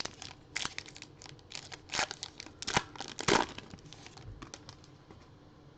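Plastic trading-card pack wrapper crinkling as it is torn open, with a dense run of crackles about two to three and a half seconds in.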